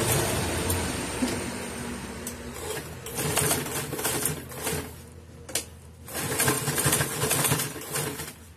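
Sewing machine stitching through vinyl upholstery material, running steadily for about five seconds, pausing briefly with a single click, then running again in a second burst that stops near the end.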